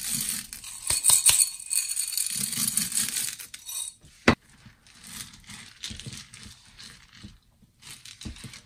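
Mini chocolate chips poured from a bowl, pattering and clinking into a glass loaf dish of ice cream, with a single sharp clink just after four seconds in. Then a silicone spatula folds the chips through the thick ice cream, with softer scraping strokes.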